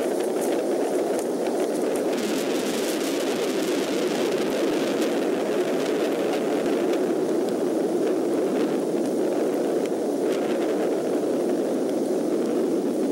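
Steady rain falling around an outdoor nest-camera microphone, an even hiss, with scattered crackles between about two and ten seconds in.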